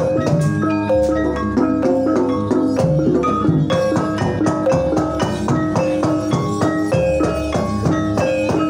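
Javanese gamelan ensemble playing a Banyumasan gending: quick runs of struck metal and wooden keys interlock over drum and gong, continuous and loud.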